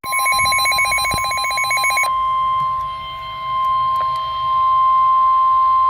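NOAA Weather Radio emergency alert: about two seconds of buzzing, chattering SAME digital header data, then the steady high-pitched warning alarm tone, which holds on without a break. The tones signal that a new warning, here a flash flood warning, is about to be broadcast.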